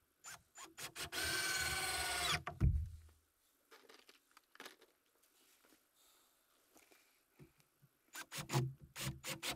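Cordless drill running into a wooden board. It gives a few quick trigger blips, then a steady whine for about a second and a half that ends in a low knock. Several more short blips come near the end.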